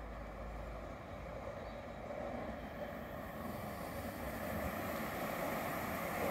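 Tatra KTNF6 articulated tram approaching along its track, its running noise growing steadily louder.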